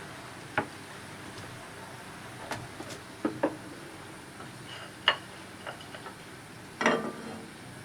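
A few light clicks and knocks of kitchen utensils and containers being handled at the stove, with a short cluster of rattling knocks near the end, over a steady low hiss.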